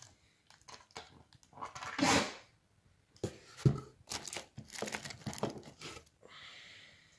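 Bubble wrap crinkling and rustling in irregular bursts as hands dig through a box of wrapped toy cars, with one sharp knock about halfway through and a softer steady rustle near the end.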